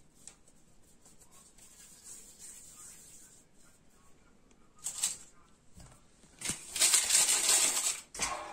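Quiet soft handling of dough at first. About six and a half seconds in, a sheet of baking paper rustles and crinkles loudly for about a second and a half.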